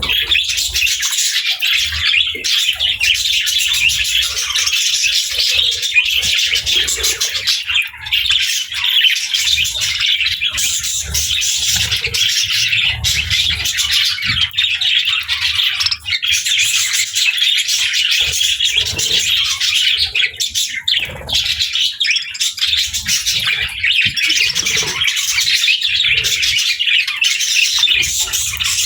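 Many pet budgies and lovebirds chirping and chattering at once: a dense, unbroken, high twittering with squawks mixed in. Soft low thuds occur here and there.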